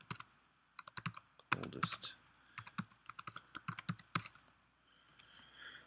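Typing on a computer keyboard: a quick, uneven run of key clicks that stops after about four seconds.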